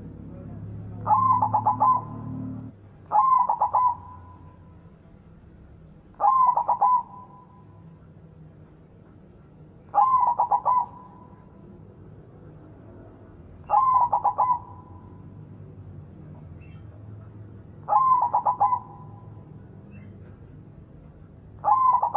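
White zebra dove (perkutut) cooing: seven short phrases, each a quick stutter of notes ending in a held note, the first two close together and then one about every four seconds.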